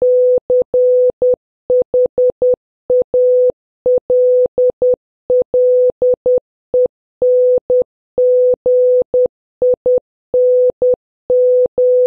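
Morse code practice tone, a steady beep near 500 Hz keyed on and off in short dots and long dashes, spelling out the word CHALLENGING (C-H-A-L-L-E-N-G-I-N-G) letter by letter at a fairly quick sending speed.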